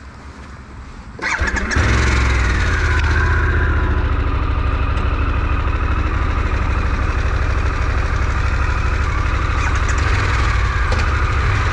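Harley-Davidson Pan America's Revolution Max V-twin engine starting about a second in, then running steadily.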